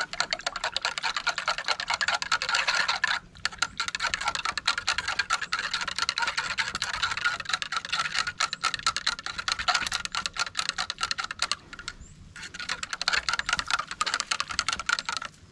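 A thin rod stirring a pesticide mix inside a plastic hand-pump sprayer bottle, clattering quickly against the bottle's walls in a fast run of small clicks. The clatter breaks off briefly about three seconds in and again around twelve seconds.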